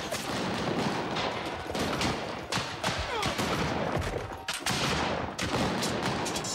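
Musket gunfire: many shots in quick, irregular succession, with faint shouting.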